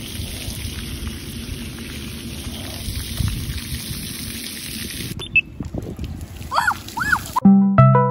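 Steady hiss of water spraying and running onto concrete at a splash pad. Near the end come two short chirps, then a run of electronic beeping tones in steps of pitch.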